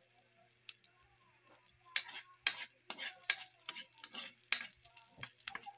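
Metal spatula stirring and scraping sliced onions around a wok in hot oil, with a light sizzle of the onions sautéing. The scraping strokes come in quick succession from about two seconds in.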